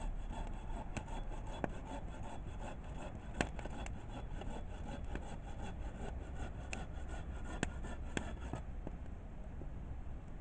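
Wood campfire burning, a steady crackle and rush of flame with several sharp pops from the burning firewood; the loudest pop comes about three and a half seconds in.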